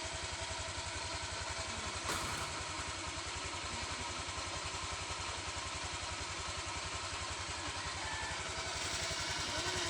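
Motorcycle engine running steadily with an even low putter and a haze of noise over it; a brief knock about two seconds in.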